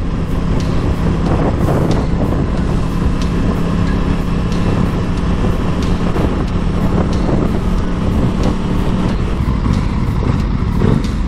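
Aprilia Tuono 660's parallel-twin engine running at a steady cruise, with wind rushing over the helmet camera. Near the end the steady engine note drops away.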